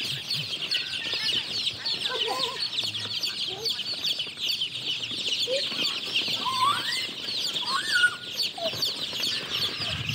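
A crowd of day-old country chicks (siruvidai) packed in plastic crates, peeping all together in a dense, high, unbroken chorus. A few lower, rising calls stand out over it, the loudest about eight seconds in.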